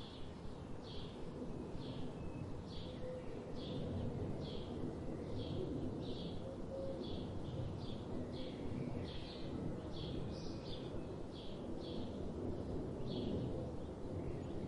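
Songbird chirping in short, quick notes, about two a second, over a steady low background noise.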